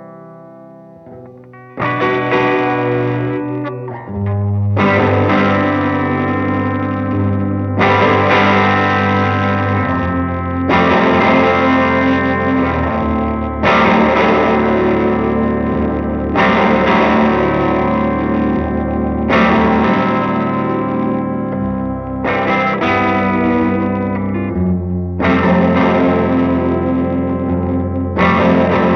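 Electric guitar played loud through distortion, chorus and delay effects into a Pequiña Fiera tube amplifier prototype and a 1x12 cabinet, playing a shoegaze instrumental. After a fading note, big sustained chords come in about two seconds in and are struck again every few seconds, ringing into each other.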